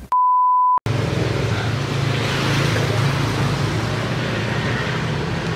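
A short, loud electronic beep, one steady pure tone lasting under a second. It is followed by the steady hiss and low hum of road traffic.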